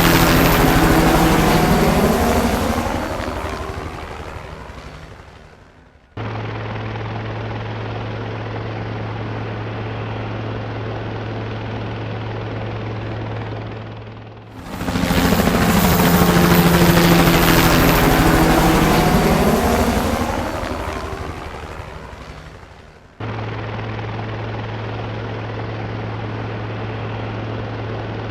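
Helicopter flying past, loud at first and fading away over about six seconds, its tone shifting as it goes; the sound then cuts off abruptly to a steady low hum. The same pass and fade comes again about fifteen seconds in, and again cuts to the steady low hum.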